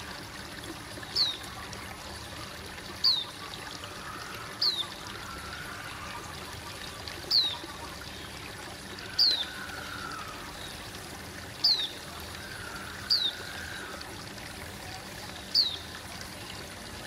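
Aquarium air stone bubbling steadily, a continuous trickling, splashing water sound. About eight short high chirps that fall in pitch sound over it, one every couple of seconds, louder than the bubbling.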